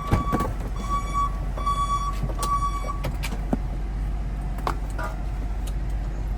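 Ford Transit van's dashboard warning chime beeping in an even repeating rhythm, stopping about three seconds in, over a steady low hum of the van, followed by a couple of sharp clicks.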